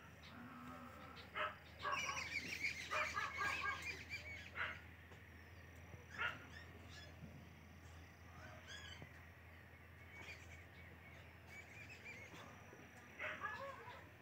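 Background animal calls: a cluster of short honking bird-like calls about two to four seconds in, then a few single calls later, over a low steady hum.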